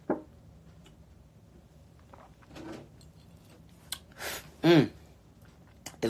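A man drinking from a plastic gallon jug, with soft swallowing and handling sounds. About five seconds in he breathes out and gives a short vocal sigh that falls in pitch.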